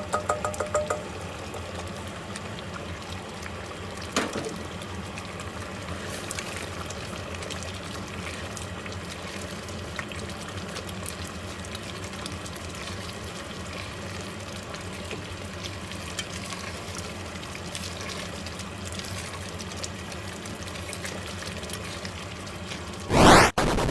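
Curry simmering in a pot on the stove, a steady bubbling, with a few light clicks at the start and a knock about four seconds in. A loud rising whoosh cuts in near the end.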